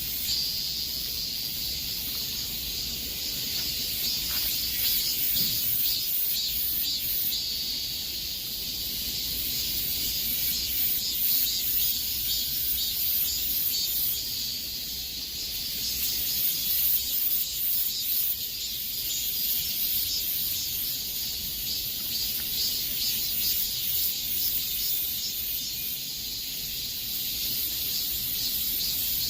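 Cicadas singing in a dense, high-pitched chorus with a fast flickering pulse, swelling and easing a little every few seconds.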